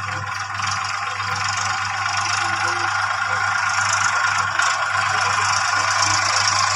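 Toy tractor and tanker trailer rolling on their plastic wheels across a tiled floor as they are pushed by hand: a steady rolling rattle and scrape.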